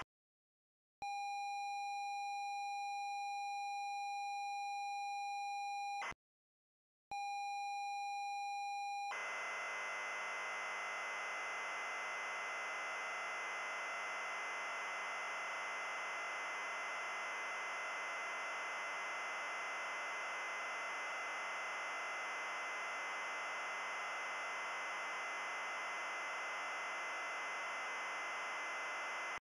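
ZX Spectrum 48K tape loading signal, emulated: about a second in, a steady pilot tone sounds for about five seconds and ends in a brief burst of header data. After a second's gap a two-second pilot tone follows, then the harsh, hissy screech of the data block loading for the rest.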